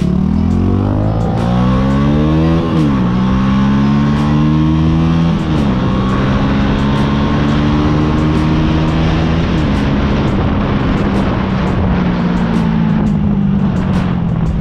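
Yamaha YZF-R125's single-cylinder four-stroke engine accelerating through the gears. The revs climb and drop at three upshifts, about three, five and a half and nine and a half seconds in, then run fairly steady.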